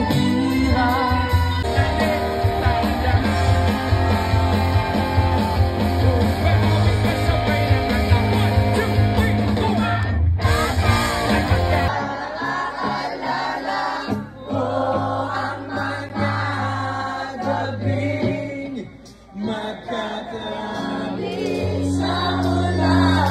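Rock band music with a lead singer, as played live at a concert, changing abruptly about halfway through to a sparser passage with less bass.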